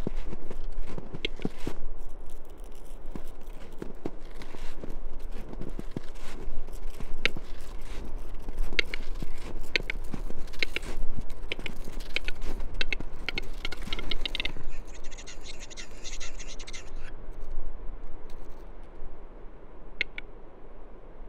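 Male western capercaillie's display song: dry clicks that quicken into a rapid run about two-thirds through, followed by a scraping, hissing phrase lasting two or three seconds. Scattered single clicks come before.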